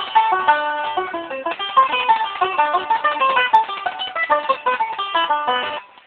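Resonator banjo picked rapidly in a run of quick separate notes, breaking off briefly near the end.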